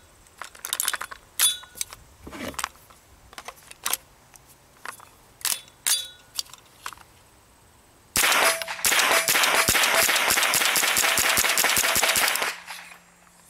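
.22LR rounds fired from an AR-15 with a CMMG .22 conversion kit, semi-automatic. For about seven seconds the shots come singly at an uneven pace, some followed by a short metallic ring. From about eight seconds in comes a fast, loud string of shots lasting some four seconds.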